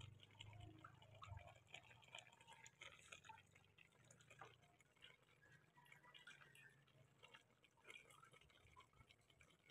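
Near silence with faint, irregular small pops and ticks of a pot of fish and vegetables simmering in its liquid on the stove.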